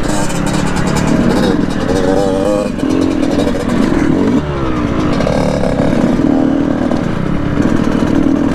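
Two-stroke dirt bike engine revving up and down while riding a trail, with the pitch rising and falling repeatedly and dropping sharply about four and a half seconds in. Wind and rumble on the microphone run underneath.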